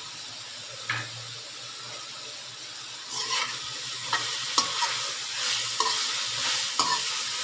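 Shredded vegetables sizzling in oil in a large metal karahi. From about three seconds in, a spatula stirs and tosses them, scraping and clinking against the pan several times.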